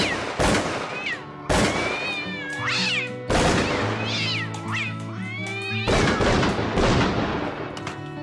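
Shotgun blasts, four or so a second or two apart, among cats meowing repeatedly, with music coming in underneath and carrying on alone at the end.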